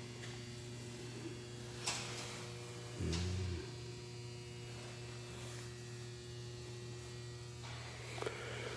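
Steady electrical hum made of several fixed tones. A few faint clicks and a short low sound about three seconds in, likely from the phone being handled.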